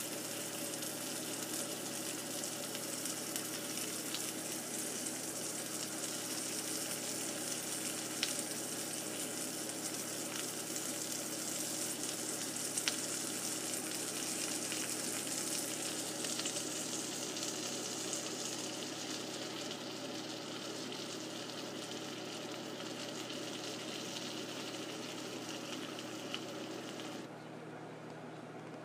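Salmon fillet and lemon slices sizzling as they pan-fry in hot oil, with a few sharp pops of spattering fat. The sizzle grows softer in the second half and drops away suddenly near the end.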